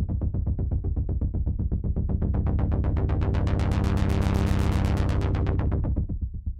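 Hardware synthesizer sample: a low, rapidly pulsing tone, about eight pulses a second, that grows brighter toward the middle and duller again before it cuts off near the end.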